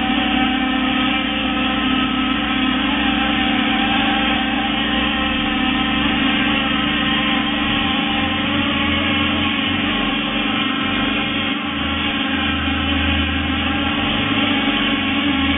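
A motor running steadily with a constant hum, its low rumble changing from about halfway through.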